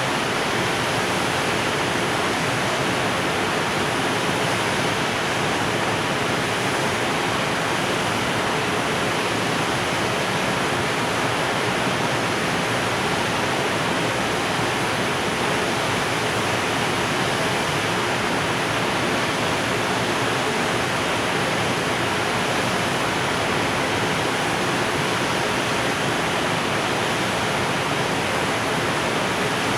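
Container freight train's wagons rolling past, a loud, steady, even rushing noise of wheels on rails with no distinct clicks.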